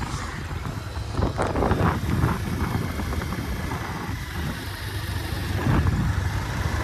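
Motorcycle engine running steadily as the bike rides along a road.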